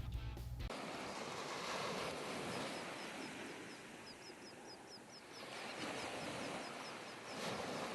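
Outdoor ambience with a steady rush of air and a small bird chirping rapidly, about four short high chirps a second, from a few seconds in. Guitar music cuts off just under a second in.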